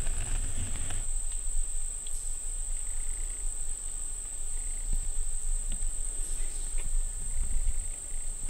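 Insects droning steadily in a high, unbroken band, with a low rumble and a few faint ticks underneath.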